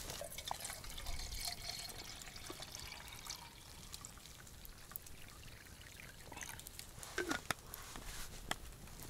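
Faint trickle of liquid, with a few small clicks and knocks near the end.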